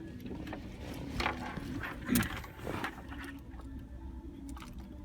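Scattered light clicks and scrapes of hands handling car radio wiring, over a low steady hum.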